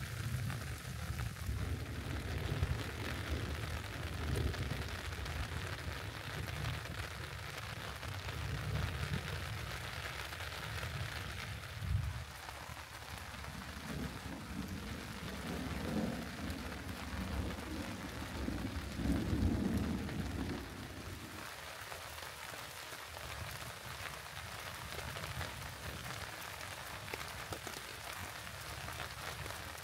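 Steady rain falling, with low thunder rumbling under it that swells to its loudest a little past halfway through.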